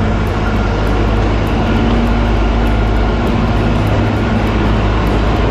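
Kalka–Shimla narrow-gauge toy train running: a loud, steady rumble and rushing noise with a low hum underneath.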